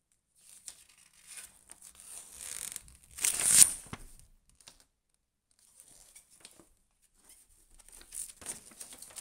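Paper instruction booklet being handled and its pages flipped: scattered paper rustling, with one loud riffle of the pages about three and a half seconds in, and more rustling near the end.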